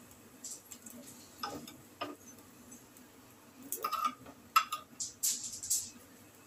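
Steel spoon clicking and scraping against a cast-iron paniyaram pan and a plate as fried dumplings are lifted out: a handful of short, sharp taps, the loudest about four and four and a half seconds in, some with a brief metallic ring.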